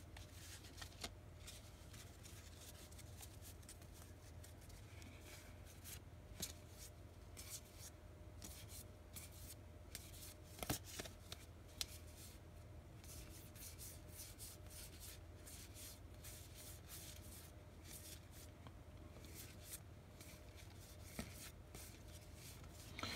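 Faint flicking and clicking of a hand-held stack of trading cards being thumbed through, the card edges snapping past one another in scattered quick runs over a low steady hum.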